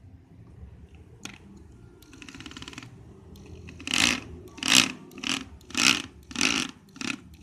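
Hitachi corded hammer drill in hammer mode, first turning slowly with a faint ratcheting rattle, then run in a string of short trigger bursts, roughly two a second, with the hammer mechanism clattering.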